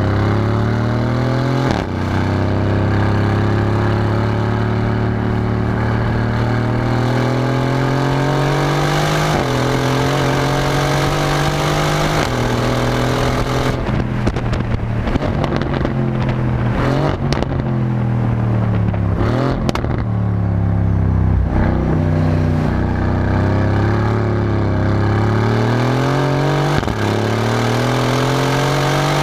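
Aston Martin car engine accelerating through the gears: the pitch climbs slowly for several seconds, then drops suddenly at each upshift, four times. In the middle stretch the exhaust note is rougher, with short cracks.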